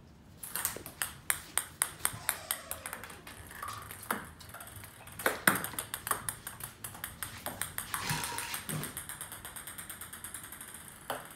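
A ping pong ball bouncing and clicking on a ceramic tile floor as a cat bats it, an irregular run of sharp clicks. Near the end the bounces come quicker and fainter as the ball settles.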